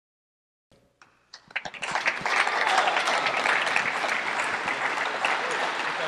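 Silence, then an audience's applause: a few scattered claps about a second in, quickly building into steady clapping from many hands.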